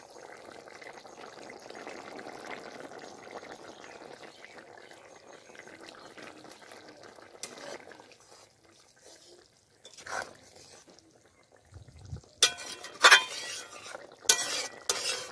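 Curry simmering with a soft, steady bubbling in a kadai, with a couple of light clicks. In the last few seconds a metal spatula scrapes and clanks against the pan as the curry is stirred.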